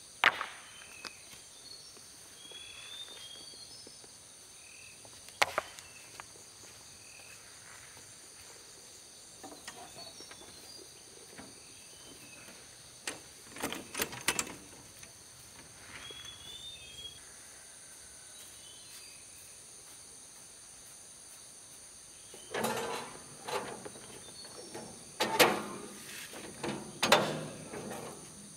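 Stones knocking into a metal wheelbarrow and the loaded barrow rattling as it is pushed. The knocks come singly at first, then in a cluster about halfway through and a busier run near the end, over a steady high insect drone.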